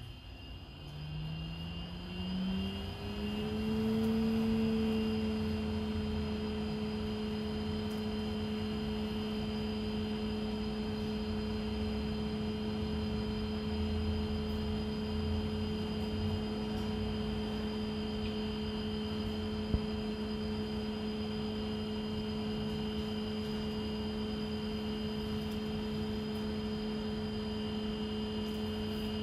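Thermo Scientific Sorvall ST16 benchtop centrifuge spinning up: the motor's whine rises in pitch over the first few seconds. It then holds steady as the rotor runs at a constant 1900 rpm, with a faint high whine above it.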